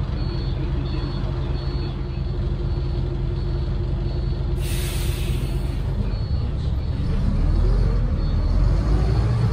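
Renault PR100.3 bus's turbocharged six-cylinder diesel idling, heard from inside the cabin, with a repeated high beep over the first two seconds. A sharp hiss of air from the air brakes comes a little before halfway. Then the engine's pitch climbs steadily as the bus pulls away.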